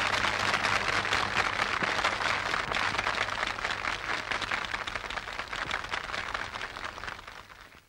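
Nightclub audience applauding, many hands clapping at once, slowly fading and dying out near the end.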